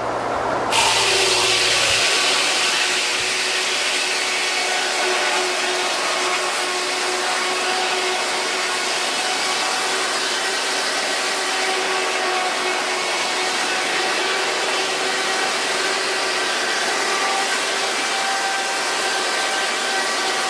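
Large circular head saw of a steam-powered sawmill ripping lengthwise through a log as the carriage feeds it past the blade. A steady rushing noise with a faint whine over it, which comes on sharply about a second in as the blade bites.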